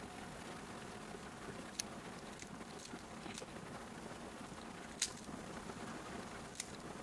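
Rubik's cube being turned quickly by hand: a soft continuous plastic rustle of the layers turning, with a few sharp clicks, the loudest about five seconds in.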